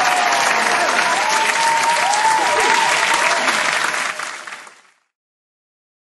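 Crowd applauding and cheering, fading out about four and a half seconds in.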